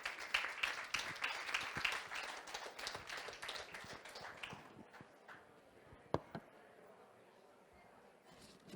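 Audience applause that dies away about five seconds in, followed by a single sharp knock and then a quiet room.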